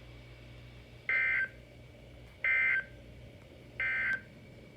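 Emergency Alert System End of Message code: three short bursts of SAME digital data tones, a rapid buzzing warble, about a second and a half apart, signalling that the warning broadcast is over.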